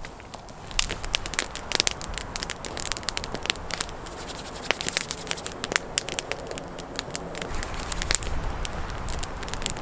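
Wood campfire of split logs burning, crackling with many irregular sharp pops.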